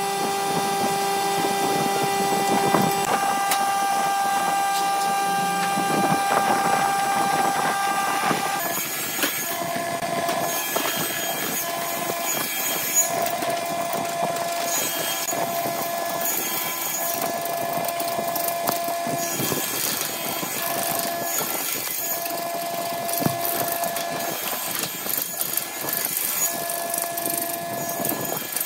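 Burt wood lathe running with a gouge cutting into a spinning log blank: a steady machine whine under the noisy scraping of the tool on the wood. The sound changes about eight seconds in, from steady tones to an uneven scrape with a tone that comes and goes and occasional sharp clicks.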